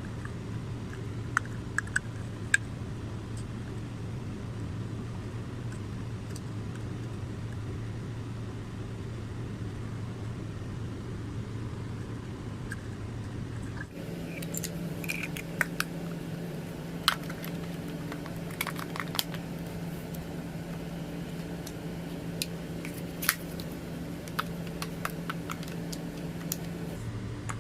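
Scattered light clicks and taps of a charger's circuit board and plastic adapter casing being handled and fitted together, over a steady low hum. The hum steps up in pitch about halfway through and drops back near the end.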